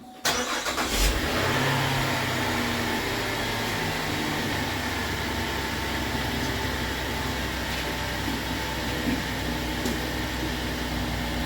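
2017 Chevrolet Traverse's 3.6-litre V6 cranking and catching near the start, flaring up briefly, then settling into a steady idle.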